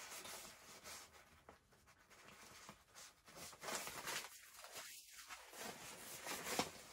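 Faint rustling and scraping of fabric bags being handled: a nylon drawstring pouch and a soft duffel.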